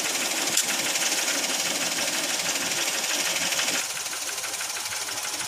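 Daihatsu Ayla engine idling with a fast, even mechanical clatter; the engine had run out of oil through missed servicing and is said to be the one part at fault. A sharp click sounds about half a second in, and the sound drops a little about two-thirds of the way through.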